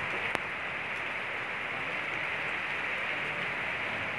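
Steady hiss of rain falling, with a single sharp click about a third of a second in.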